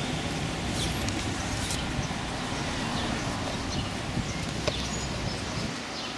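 Street noise: a steady rush of wind and passing car traffic.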